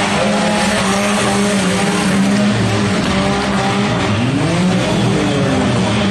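Engines of several demolition derby cars revving, their pitches rising and falling over one another.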